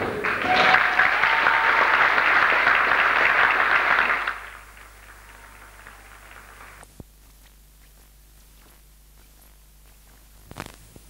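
Audience applauding, cut off about four seconds in. A low steady hum follows, with two sharp clicks.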